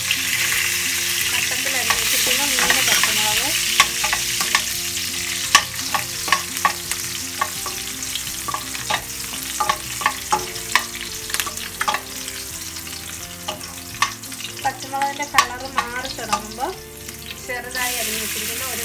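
Green chillies and curry leaves sizzling in hot oil in a steel kadai, with a metal spoon stirring and clinking against the pan many times through the middle. Near the end the sizzle gets louder as chopped onions go into the oil.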